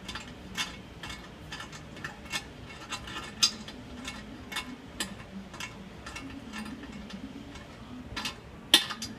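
Light clicks, roughly two a second, from hand tools on the tank-to-bowl bolt and nut as they are tightened, with one sharper click near the end.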